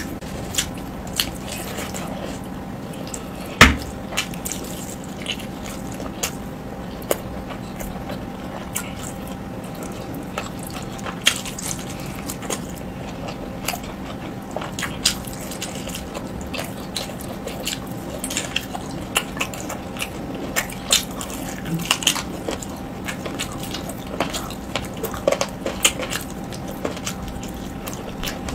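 Close-miked eating with the hand: wet chewing and mouth smacks, with rice and curry squelching as fingers mix and scoop it, as many small irregular clicks. One louder smack comes about three and a half seconds in, over a faint steady hum.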